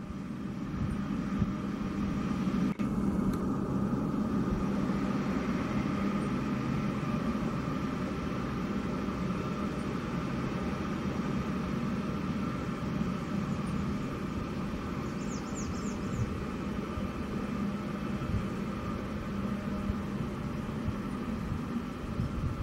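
Boeing C-17 Globemaster III's four Pratt & Whitney F117 turbofan engines running at taxi power as the jet turns on the apron: a steady whine over a low hum and rumble.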